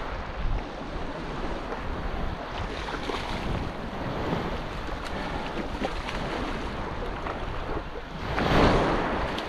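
Small waves washing in shallow surf, with wind buffeting the microphone; a louder rush of noise swells up near the end.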